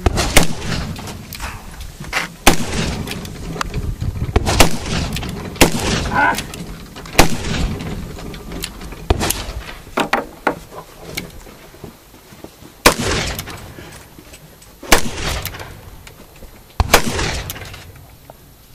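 Black-powder revolver firing a string of single shots one to two seconds apart, each with a short echo. There is a lull in the middle, then three more shots about two seconds apart near the end.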